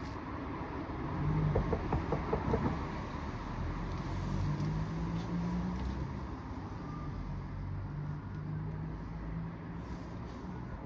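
Low, steady engine-like rumble with pitched tones that shift up and down, as from a motor vehicle running. About a second and a half in comes a quick run of about six rattling taps.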